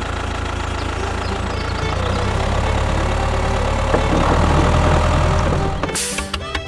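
Tractor engine running steadily, a little louder for a few seconds in the middle; a short burst of hiss about a second before the end.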